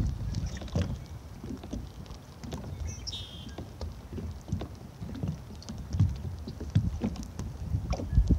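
Irregular soft knocks and bumps, with scattered light clicks and a brief high chirp about three seconds in.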